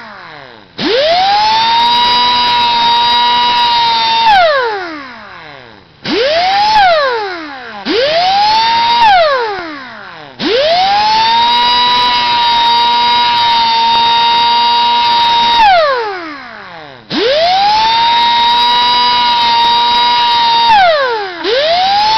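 Small electric grinder switched on and off again and again while grinding down the rakers (depth gauges) on a chainsaw chain. Its high whine rises quickly to a steady pitch, holds for a second to five seconds, then winds down with falling pitch, about six times.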